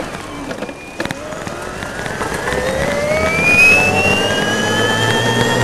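Electric golf cart's D&D 12 HP separately excited DC motor, run by an Alltrax DCX500 controller, whining and rising steadily in pitch as the cart accelerates. A short click comes about a second in, and road and wind noise grow with the speed.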